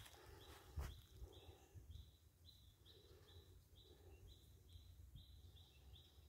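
Near silence with a faint high-pitched chirp from a small animal, repeated evenly about twice a second from about a second in, over a low rumble.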